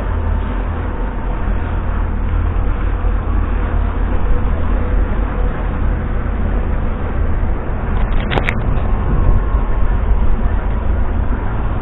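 Large motor yacht's inboard engines running with a steady low rumble as it turns close by. A single sharp click sounds a little after eight seconds in.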